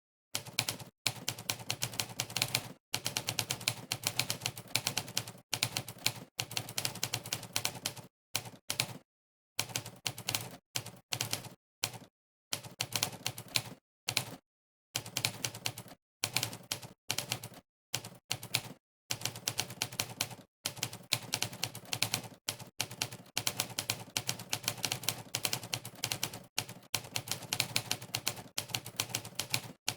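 Typing-test keystroke sound effect set to 'typewriter': a sharp typewriter key clack for every key pressed, coming in fast runs of rapid typing. The runs break off every second or so for short gaps of dead silence.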